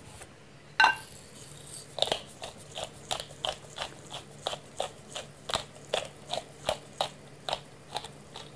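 Pepper mill grinding black pepper: a steady run of short crunchy clicks, about four a second, starting about two seconds in. A single knock comes about a second in.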